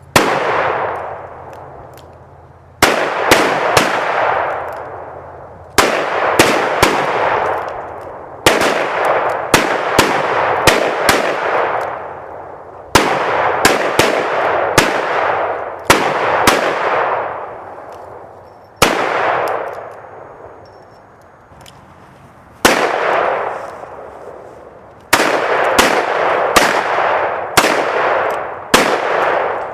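Handguns firing in rapid volleys: groups of quick shots every few seconds, several in close succession at times, each group trailing off in a long echo lasting a second or two.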